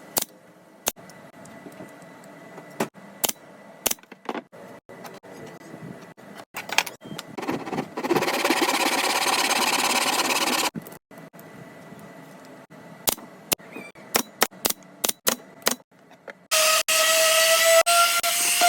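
Crafting work sounds: scattered sharp clicks and knocks of handling, a steady hiss for about three seconds in the middle, and near the end a small power tool motor running with a slightly rising whine.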